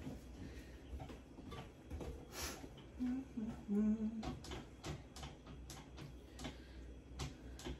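Spatula scraping and tapping buttercream off a stand mixer's beater and glass bowl: a string of soft, irregular scrapes and knocks. A short hummed voice sound comes about three to four seconds in.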